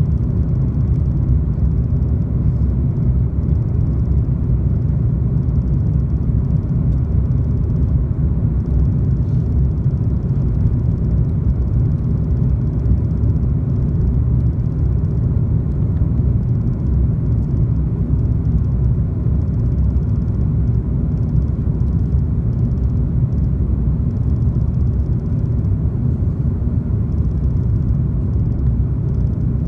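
Cabin noise inside an Airbus A330-200 airliner on approach, with the flaps extended: the engines and the air rushing past the fuselage make a loud, steady, low-pitched noise.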